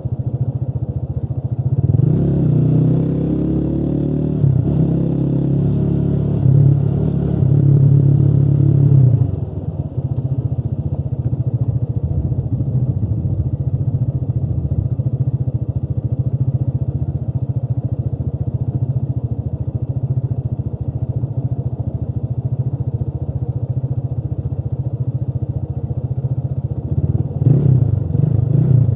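Motorcycle engine running under way: its pitch rises and changes in steps for the first several seconds, as with accelerating through the gears, then it holds a steady cruise, with a brief change in engine pitch again near the end.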